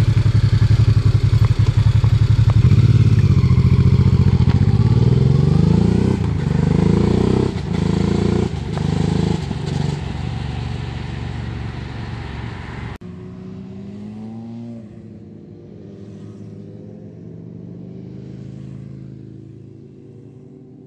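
Motorcycle engines passing close by, among them a silver Honda Transalp, revving up with rising pitch as they accelerate. About thirteen seconds in, the sound cuts abruptly to a quieter, more distant motorcycle engine that fades away near the end.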